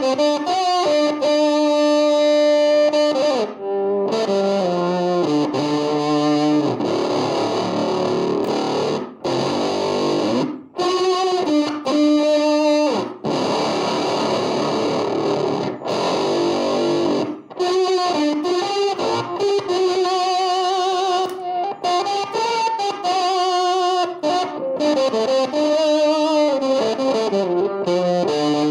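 Electric guitar played through a Fender Blender clone fuzz pedal, switched on, giving a heavily distorted tone. It plays held notes and short phrases with slides and a wavering pitch in places, broken by several brief pauses.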